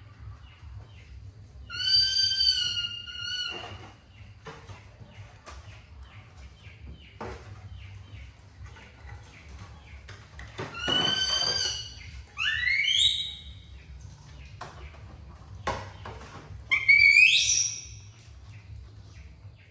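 Baby monkey giving four high-pitched squealing calls with long pauses between them; the later two rise in pitch. Faint ticking and a low hum run underneath.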